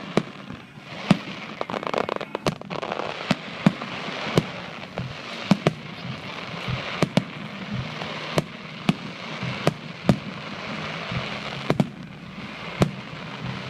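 Fireworks going off: sharp bangs at irregular intervals, about one a second, over a steady crackling hiss.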